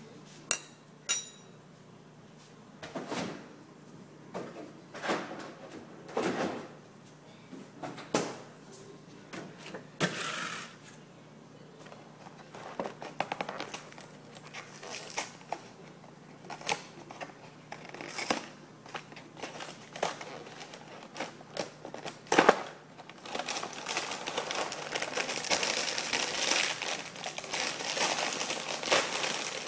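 A cardboard cereal box being handled and opened, with scattered rustles, clicks and one sharp knock. From about two-thirds of the way through, the plastic inner bag crinkles steadily as it is pulled open.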